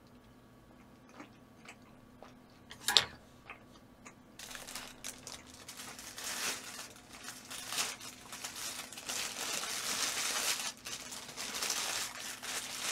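Close-up crinkling and crunching, dense and crackly, starting about four seconds in, after a single sharp click a little before it.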